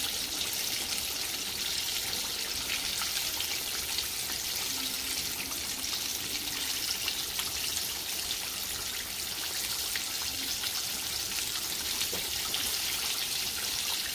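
Whole catfish in fish-fry coating deep-frying in a pan of hot oil: a steady sizzle with fine crackling.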